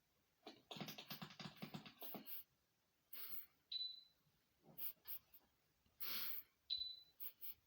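Scurrying, rustling noises and two brief high squeaks from a mouse-themed video made for cats.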